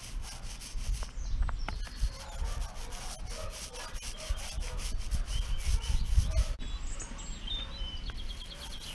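Mini paint roller rolled back and forth in uneven strokes over a sand-coated gunwale, rubbing across the grit as it lays on gloss paint.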